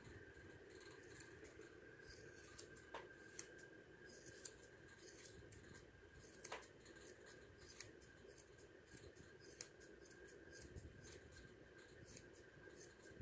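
Grooming shears snipping through a standard poodle's coat: quick, irregular light snips, a few of them louder, with no speech.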